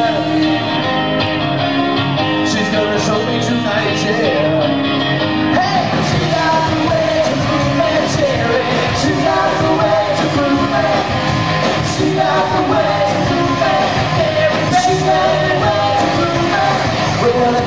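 Live rock band playing: electric guitar, bass and drums, with singing over them.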